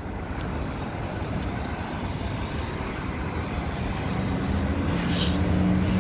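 Street traffic noise, with a vehicle engine growing louder over the last two seconds as it draws nearer.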